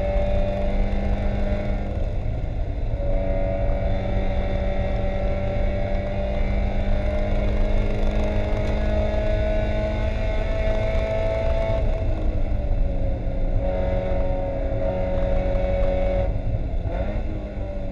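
Spec Miata's 1.8-litre four-cylinder engine heard from inside the caged race car, held near 6,000 rpm at full throttle with the pitch climbing slowly. The note breaks off briefly about a second in and dips again around twelve seconds in. Near the end it falls away as the car brakes hard.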